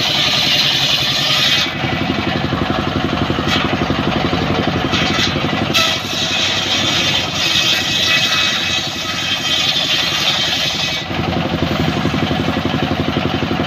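Engine-driven circular sawmill ripping a mahogany log: the engine runs steadily while the blade's cutting hiss stops about a second and a half in, returns from about seven to eleven seconds, and then only the engine is left running.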